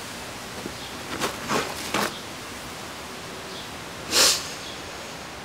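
A person's short sharp sniff about four seconds in, over a steady background hiss, with a few soft rustles a second or two earlier.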